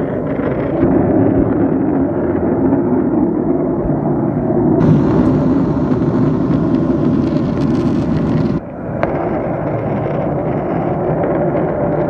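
Jet airliner cabin noise at cruise: a loud, steady rush of engine and airflow, with a brief drop in level about eight and a half seconds in.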